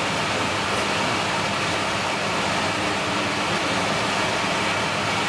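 A steady, even rushing noise with a faint low hum, unchanging throughout, as from a fan running.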